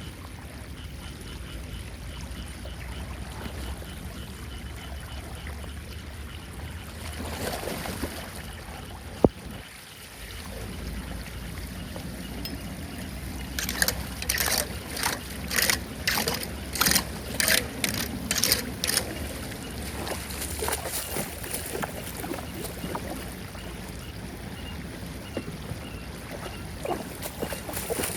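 Floodwater rushing steadily down a cleared street drain. About nine seconds in there is one sharp click, and midway comes a quick run of a dozen or so sharp noises, about two a second.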